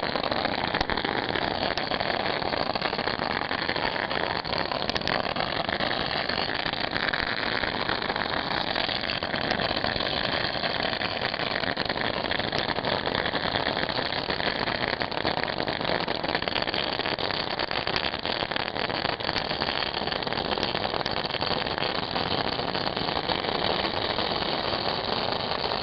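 Ground fireworks going off in a dense, continuous rapid crackle with hiss, a long unbroken rattle of small cracks at an even level throughout.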